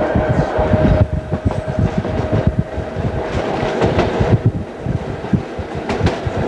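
Budapest HÉV suburban electric train running, heard from on board: wheels rattling and clacking over rail joints and points, with a steady whine that fades about four seconds in.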